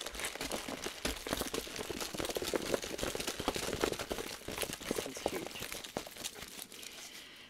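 A rolled diamond painting canvas in its plastic wrapping being unrolled and flattened by hand: continuous crinkling and rustling that dies down near the end.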